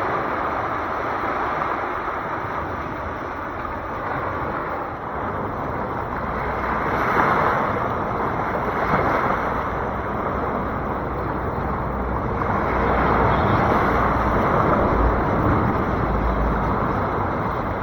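Sea waves washing onto the shore, a continuous surging hiss that swells about seven seconds in and again a few seconds before the end, with low wind rumble on the microphone near the end.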